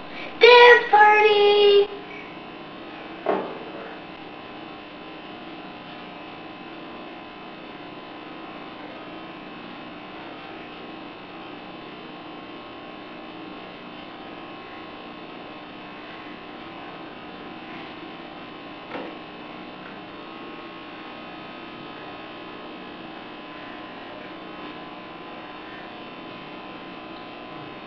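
A child's voice singing a few short held notes right at the start, then a faint steady hum.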